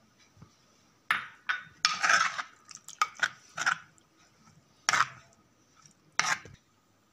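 Metal spoon stirring a thick fish curry in an earthenware pot, clinking and scraping against the pot's wall in several sharp, irregular strokes.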